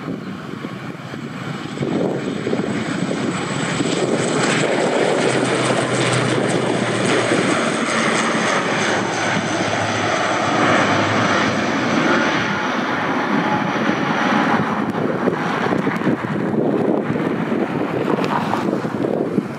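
An ATR 72-600 turboprop airliner's two Pratt & Whitney PW127 engines at takeoff power as it rolls, lifts off and climbs away. There is a steady low propeller hum and a high turbine whine that slowly falls in pitch. The sound gets louder about two seconds in.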